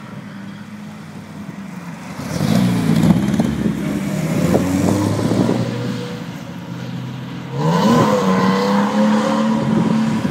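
Two drift cars' engines revving hard and changing pitch as they slide through the corners in tandem, with tyres squealing; the engines get louder about two seconds in and the revs climb sharply about seven and a half seconds in.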